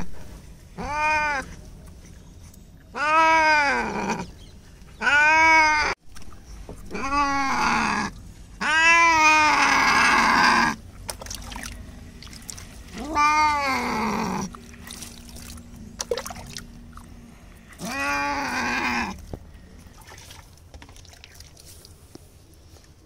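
A wet tabby cat yowling in distress at being bathed and handled: about seven long, drawn-out meows, each rising and then falling in pitch, with short pauses between and a longer gap near the end.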